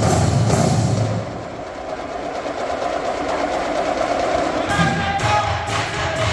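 Marching band drumline playing: the drum strokes stop about a second in, leaving a quieter held passage, and the drums come back in with pitched band notes near the end.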